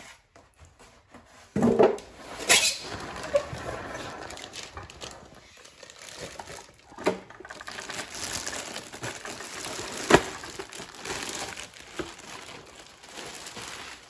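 Crinkling and rustling, as of packaging being handled, with a few sharp knocks; the sharpest comes about ten seconds in.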